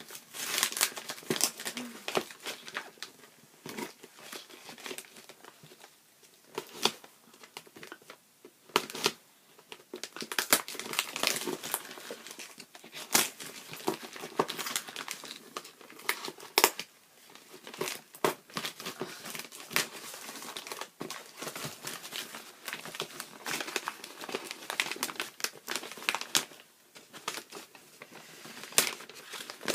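Wrapping paper being carefully unwrapped by hand: dense, irregular crinkling and crackling, with a couple of brief quieter spells.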